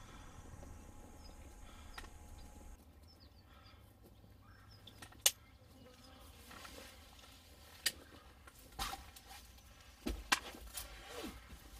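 A few short, sharp clicks and knocks close to the microphone, the loudest about five seconds in and several more near the end, over faint outdoor background.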